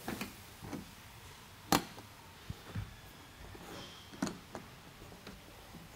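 The spring latches of a Fold-A-Cover G4 Elite tonneau cover snap open one after the other, two sharp clicks about two and a half seconds apart, as the release handle is slowly lifted. Smaller clicks and rattles from the handle and cables come between them. The separate releases show the latches are not timed correctly.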